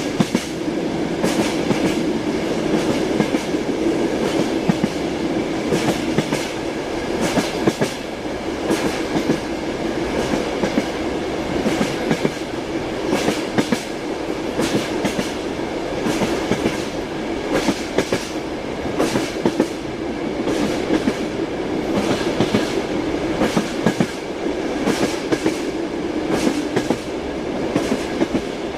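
Train wheels clattering over the rails, heard from inside a railway carriage: a steady rolling rumble broken by frequent sharp clacks at uneven spacing.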